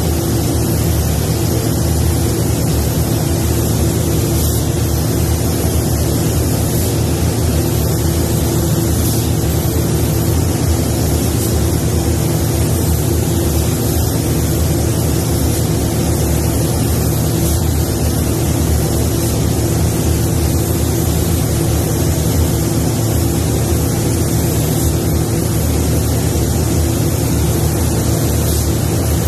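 Steady hiss of a paint spray gun's air laying down clear coat, over the even drone of paint-booth fans.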